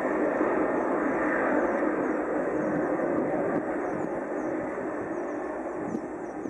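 Four Pratt & Whitney PW4056 turbofans of a Boeing 747-400 at take-off power during the take-off roll: a steady jet-engine roar that slowly fades as the airliner moves away.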